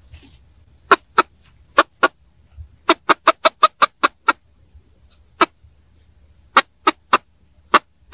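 Domestic chicken giving its ground-predator alarm call: rapid, alarming clucking in short, sharp notes, some in quick runs of four or five and others spaced up to a second apart. The call signals a ground predator nearby.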